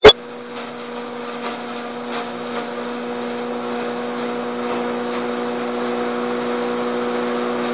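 Electric straw hammer mill running with a steady hum, slowly getting louder, with a few faint crackles as straw is fed in. A sharp click right at the very start.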